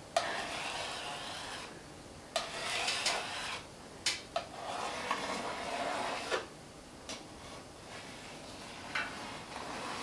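A hand scraper rasping across a painted surface in repeated strokes with short pauses and a few small clicks, scraping off a thick layer of caked kitchen grease.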